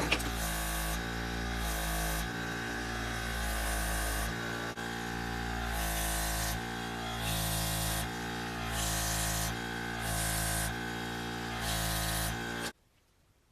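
Background music of sustained chords that change about every second, with regular bursts of hiss in time with them. It cuts off suddenly near the end.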